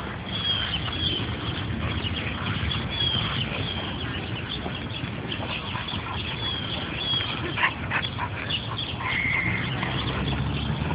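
Two dogs, a Great Dane and a soft-coated wheaten terrier, at play outdoors against steady background noise, with short high chirps repeating throughout and a few sharp clicks about two-thirds of the way through.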